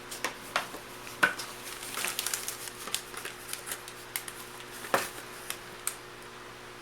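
MRE packaging being handled as the flameless ration heater pouch and prep sleeve are fitted together: an irregular run of plastic crinkles, taps and clicks, with the sharpest knocks about a second in and near five seconds.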